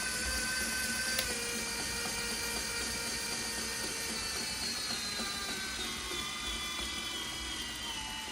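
Small electric motor of a toy RC car whining steadily, its pitch slowly falling as the motor slows. A brief click about a second in.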